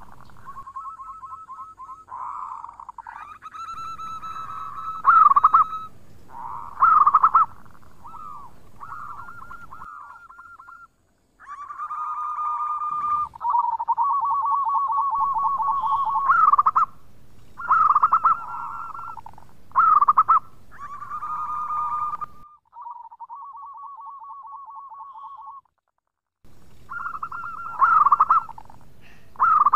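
Zebra dove (perkutut) cooing: its song of rapid trilled coos, repeated phrase after phrase, with two brief breaks.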